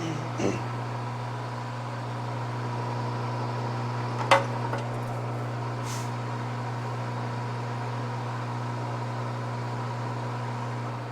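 Metal lathe running steadily while facing off the end of a workpiece, with a sharp metallic click about four seconds in. The level drops away at the very end.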